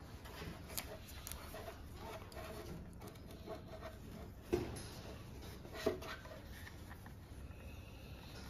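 Faint rubbing and clicking of hands handling a plastic motorcycle headlight housing as an LED bulb and its wiring are fitted, with two sharper clicks about four and a half and six seconds in.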